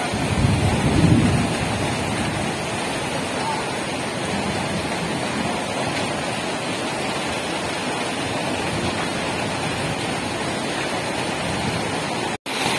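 Very heavy rain pouring down onto flowing floodwater, a steady rushing hiss, with a low rumble of wind on the microphone about a second in.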